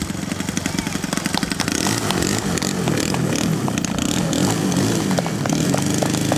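Engine of a large radio-controlled Fly Baby scale model running as it taxis on grass. Its pitch rises and falls with the throttle, and it gets louder about two seconds in.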